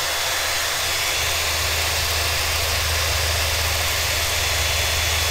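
Cordless drill running at a steady speed, spinning an unpowered brushless RC motor clamped in its chuck, with a steady high whine.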